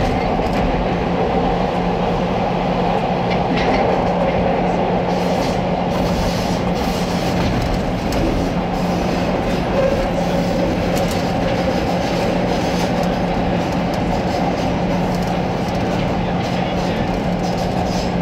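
CTA rapid-transit train running through a subway tunnel: a steady rumble of wheels on rail over a constant low motor hum, with scattered clicks from the track.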